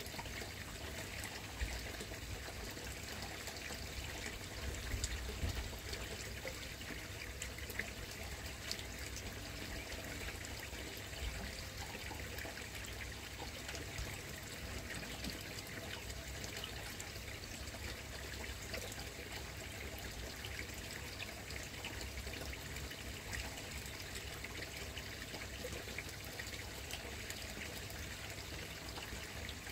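Steady trickle of running water in a koi pond, with a low rumble and a few faint clicks near the start.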